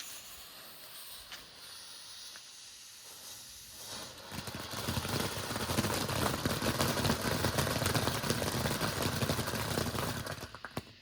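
Silver Bullet consumer firework fountain by Flashing Fireworks: a softer hiss for the first few seconds, then from about four seconds in a loud, dense crackling hiss as it sprays. It dies away with a few last pops near the end.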